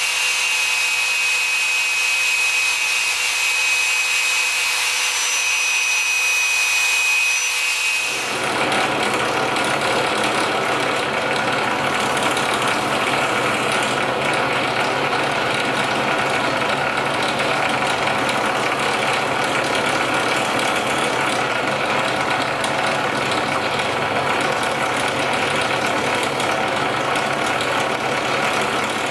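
Drill press spinning a drum sanding spindle, with curly birch knife-handle scales pressed against the drum: a steady motor hum made of many even tones under a grinding hiss. It starts suddenly about eight seconds in, replacing a thinner, higher machine whine and hiss.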